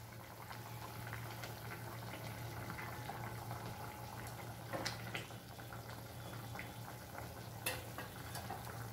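Thin fish curry (macher jhal) with katla pieces quietly bubbling at the boil in a wok, with small scattered pops and a couple of slightly louder ones about halfway through and near the end.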